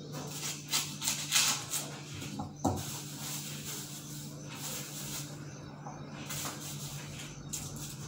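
Hand work at a kitchen counter: short clicks, rustles and scrapes as food is handled in a bowl, busiest in the first three seconds and then softer, over a low steady hum.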